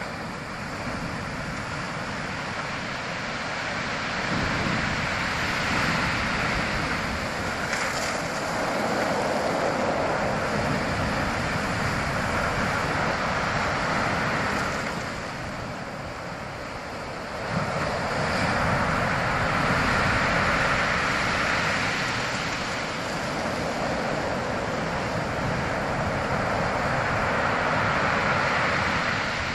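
Ocean surf: waves breaking and washing in, a continuous rush that swells and eases every few seconds. It dips about halfway through, then a fresh wave breaks sharply.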